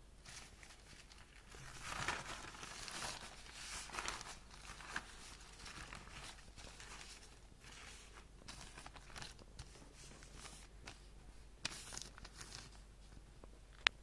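Plastic packaging bags crinkling and rustling as they are handled and opened, loudest in the first few seconds, with scattered crackles after and one sharp click near the end.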